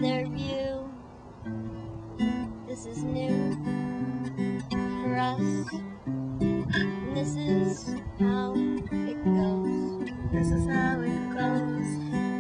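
Acoustic guitar playing a tune, with strummed chords and notes that change every half second or so.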